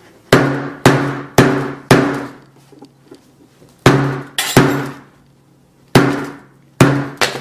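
A 2.5-pound hammer striking and denting the aluminium back of an iPhone 6s, nine blows in all: four about half a second apart, then two, then three. Each blow is a sharp hit followed by a brief ringing tone.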